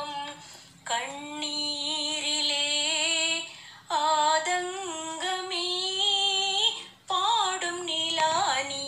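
A woman singing a Tamil song solo, with wavering held notes, in three phrases broken by short pauses about three and a half and seven seconds in.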